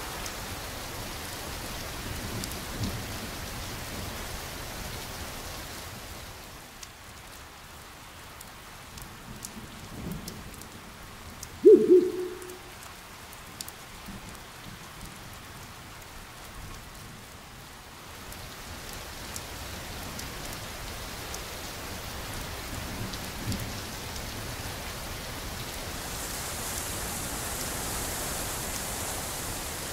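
Steady rain ambience. About twelve seconds in comes one sudden loud, short low call that falls slightly in pitch, and there are fainter low calls around ten and twenty-three seconds in.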